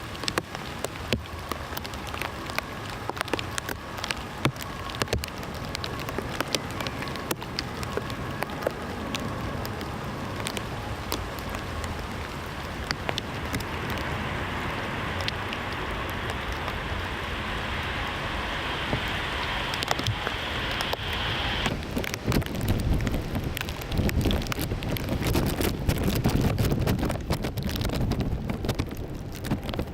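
Rain pattering as many small clicks over a steady hiss, with a high steady tone that cuts off suddenly about 22 seconds in; after that a louder low rumble takes over.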